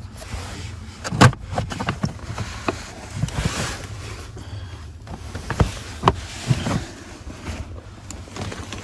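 Hands working on small car parts: scattered clicks and knocks, the loudest a little over a second in, with a brief rustle around three and a half seconds in.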